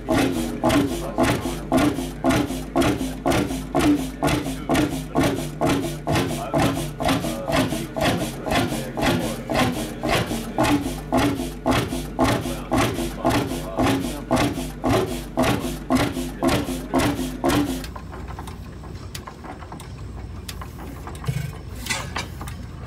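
Large Fairbanks Morse single-cylinder horizontal stationary engine running at a slow, steady beat, about one and a half loud strokes a second. About eighteen seconds in the beat stops and a quieter, steady low running sound takes over, with a couple of sharp clicks near the end.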